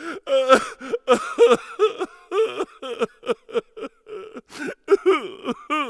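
Quick, garbled, voice-like chatter: short syllables several a second, each sliding up or down in pitch, over a steady faint hum.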